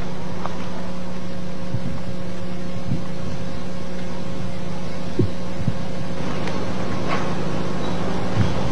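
A steady low hum with a fainter higher tone held over it, and a few faint clicks.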